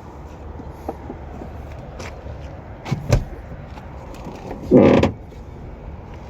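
A damaged car door being worked: two sharp latch clicks a moment apart, then a louder, short rough thud or scrape lasting about half a second.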